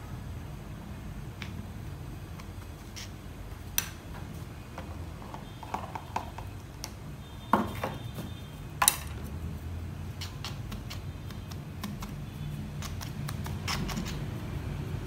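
Thin wooden stick poking and working potting soil in a clear plastic pot: scattered light taps and scrapes, with a few sharper clicks, over a steady low hum.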